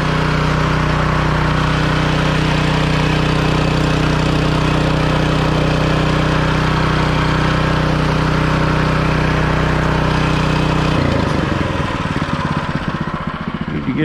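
Newly fitted DuroMax 7 hp single-cylinder gasoline engine on a small bandsaw mill, running steadily shortly after being started. About eleven seconds in, the even engine note gives way to a rougher, less steady sound.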